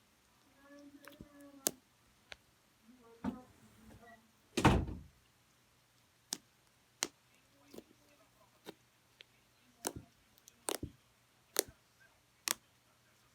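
Scattered sharp clicks and taps, about one a second, with a heavier thump about four and a half seconds in and a faint voice briefly in the first four seconds.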